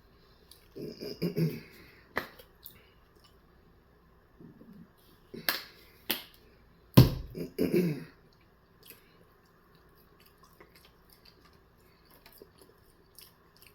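Close-miked eating sounds: soft chewing with a few sharp lip smacks and mouth clicks, the loudest a little past halfway.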